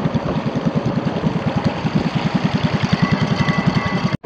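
Motorboat engine running at a low, steady speed, a rapid even chugging beat, with a brief break near the end.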